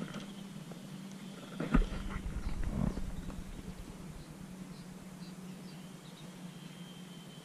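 A sharp knock about two seconds in, followed by about a second of low rubbing rumble: the handling noise of the camera being moved and repositioned. A steady low hum runs underneath throughout.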